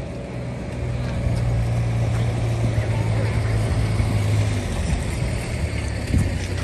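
An engine running with a steady low hum that eases after about four and a half seconds.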